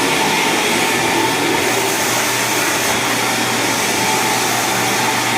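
Steady, loud whir of a motor-driven blower, with a low hum underneath and no breaks.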